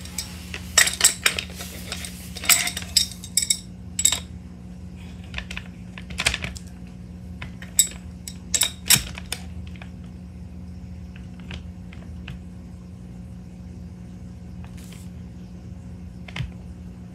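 Metal clinks and knocks of an adjustable steel wrench and rifle parts as a carbon fiber air bottle is screwed onto an air rifle's bottle adapter and snugged down. The knocks come thick and fast in the first half and only now and then later, over a steady low hum.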